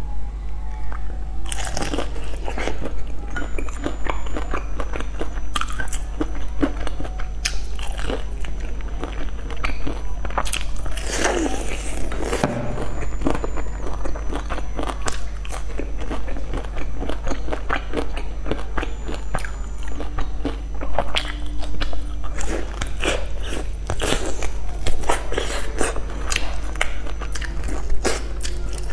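Close-miked biting and chewing of sauce-glazed fried chicken, with frequent crisp crunches and crackles, over a steady low hum.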